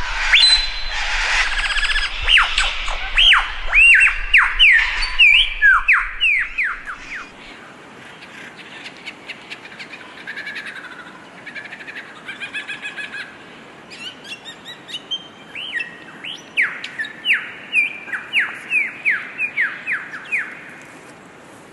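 Lyrebird singing: rapid runs of sharp, falling whistled notes, loud for the first several seconds, then softer chirps and clicks, then a second run of falling notes in the last third.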